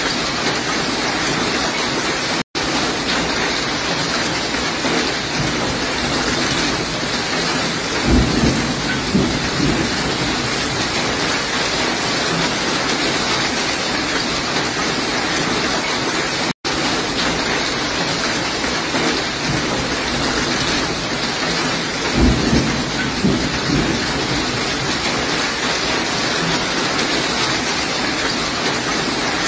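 Heavy storm downpour of rain and hail falling with a steady hiss, with two low rumbles of thunder, about eight and twenty-two seconds in. The sound cuts out for an instant twice.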